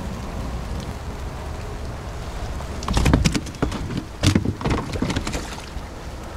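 Steady rain falling, with a cluster of sharp knocks about three to five seconds in, the loudest part.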